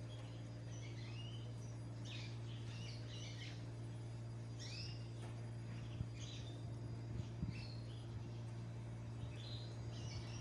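Small songbirds chirping in short bursts every second or two, over a steady low hum, with a few faint knocks in the second half.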